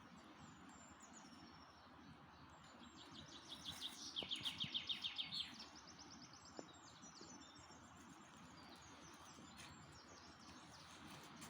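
Songbirds singing over a steady low background rush: one bird gives a fast run of quickly repeated notes about three seconds in, lasting two to three seconds, while fainter high chirps come and go.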